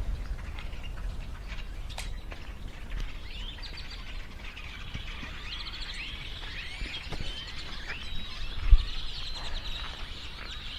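Small birds chirping and calling, many short rising and falling chirps overlapping, over a steady low rumble. One sharp thump sounds near the end.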